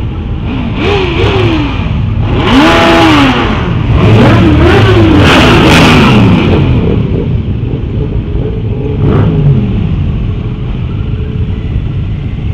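Motorcycle engines revving up and falling back several times, over steady road and wind rush, heard from a helmet camera on a moving motorcycle. The sound cuts off abruptly at the end.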